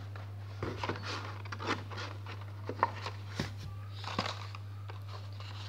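Hot Wheels cars in plastic blister packs on cardboard backing cards being pulled out of a cardboard case: scattered crinkles, taps and clicks of plastic and card, over a steady low hum.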